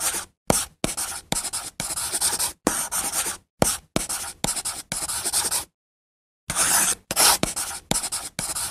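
Chalk scratching on a chalkboard in a rapid series of short writing strokes, with a pause of nearly a second about two-thirds of the way through.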